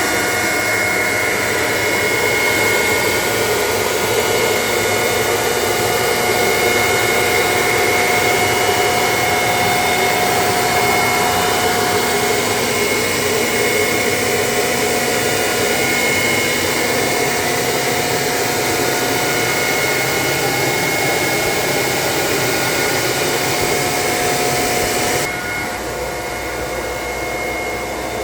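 Steady, loud whooshing hiss of rushing air with faint, steady whining tones. About 25 seconds in it suddenly drops in level and loses its highest hiss.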